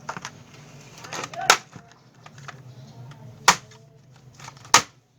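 Plastic clips of a laptop's top case snapping loose as a pry card is run along the seam: three sharp clicks, about a second and a half in, about three and a half seconds in, and near the end.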